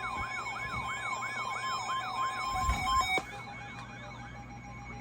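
Weather radio emergency alert: a steady high alarm tone under a siren-like rising wail that repeats about three times a second. The steady tone cuts off with a click about three seconds in, and the wail fades out soon after. It is the attention signal that comes before a flash flood warning is read out.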